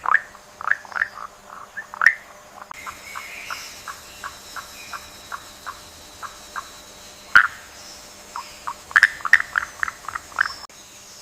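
Frogs calling in short repeated croaks: an irregular chorus, then a quick even series of about four calls a second in the middle, over a faint high insect hum. A single sharp click comes about seven seconds in.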